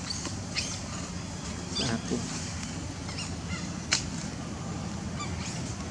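Monkeys giving short, sharp squeaky calls, about five over a few seconds, over a steady low hum.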